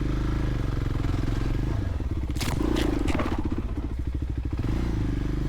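Voge 300 Rally's single-cylinder engine running at low revs as the bike moves slowly. A brief scraping rustle comes about two and a half seconds in.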